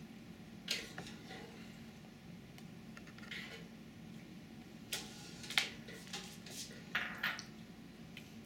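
A toddler eating with her fingers from a small bowl: a scatter of short wet clicks and smacks, the loudest coming between about five and seven and a half seconds in, over a faint steady hum.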